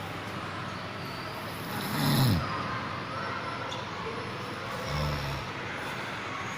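Snoring: one loud snore whose pitch falls about two seconds in, and a lower, shorter snore about five seconds in, over a steady background hiss.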